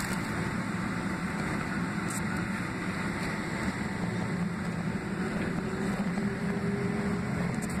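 Steady cabin drone inside a Boeing 767-300ER taxiing, its General Electric CF6-80C2B6 engines running at low power, with airflow hiss over a low hum.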